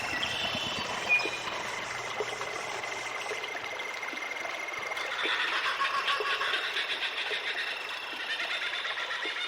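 Jungle ambience: a steady bed of overlapping bird and insect calls over a constant hiss, with one high note held through the first half. About halfway through a denser, fast-pulsing chatter of calls sets in.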